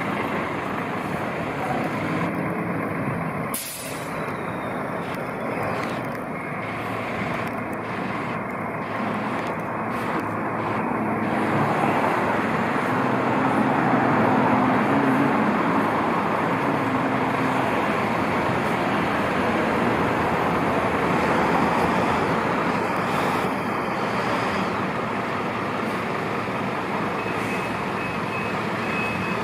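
Diesel engine of a Scania fire engine running as the truck moves slowly, growing louder through the middle. A faint repeating reversing beeper comes in near the end.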